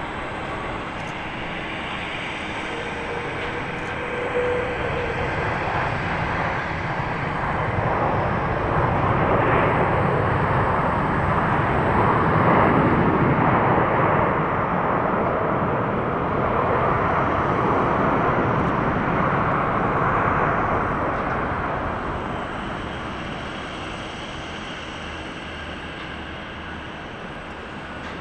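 Airbus A330-300 jet engines on the landing rollout: a steady rush that swells loud from about 8 to 20 seconds in, typical of reverse thrust, then dies down as the airliner slows.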